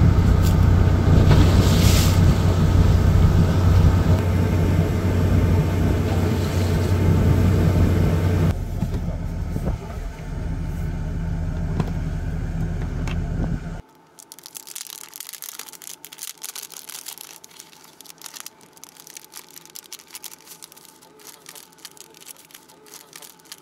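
A fishing boat's engine running steadily with a low hum. About fourteen seconds in it cuts off sharply, giving way to quiet rustling and clicking of plastic tackle packets being handled in a tackle box.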